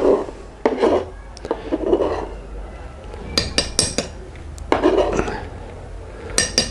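Kitchen knife scraping minced garlic across a plastic cutting board and tapping it into a wooden mortar. It makes a run of short scrapes, with clusters of sharp clicks and clinks from the blade about three and a half seconds in and again near the end.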